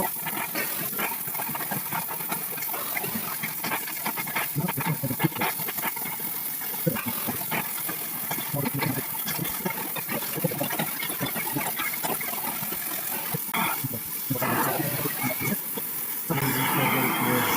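Oxy-acetylene welding torch flame hissing steadily, with frequent small crackles and pops as it melts the steel being joined.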